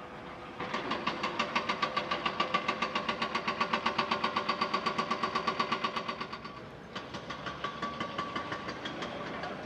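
Messerschmitt Bf 109 E-3's Daimler-Benz DB 601 engine running on the ground, with a regular pulsing about seven times a second. The pulsing is louder for the first six seconds, then drops in level.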